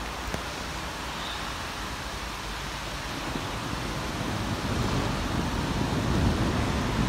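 Distant thunder rumbling, a low rumble that builds and grows louder from about halfway through, over a steady hiss of wind.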